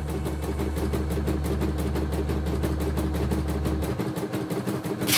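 CNY E960 computerised embroidery machine stitching a design, its needle beating rapidly and evenly at about ten strokes a second over the hum of its motor.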